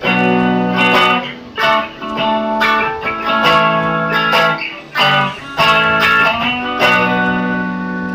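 Custom-built hybrid guitar with both the neck and bridge pickups on, playing a B minor–D–A–G chord progression in a clean tone. It is a series of strummed chords, the last one left ringing near the end.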